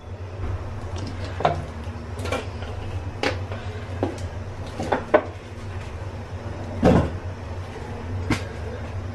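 Steady low rumble of a lit gas stove burner heating an iron kadai of oil. About eight sharp knocks and clicks of kitchen things being handled sound over it, the loudest a dull thump about seven seconds in.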